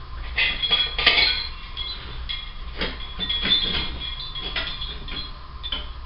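Ceiling fan motor housing clinking, knocking and scraping against its metal ceiling bracket as it is worked loose and slid down. The clicks and knocks come irregularly, with thin high scraping in between.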